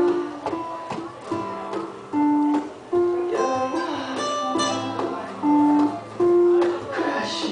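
Acoustic guitar playing an instrumental passage of a song, with plucked notes and chords ringing in a steady pattern.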